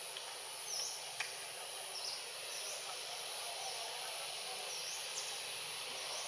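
Outdoor ambience: a steady high insect drone over an even background hiss, with a few short high chirps scattered through it and a faint click about a second in.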